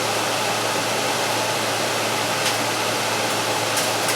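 Frigidaire window air conditioner's fan running steadily, a constant rush of blown air over a low hum, with the compressor not yet running. A couple of faint ticks come in the second half.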